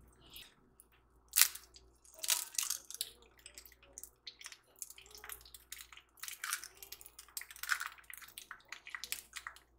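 An eggshell being cracked and pulled apart by hand over a frying pan: a string of sharp, irregular cracks and crunches, the loudest about a second and a half in, over a faint low hum.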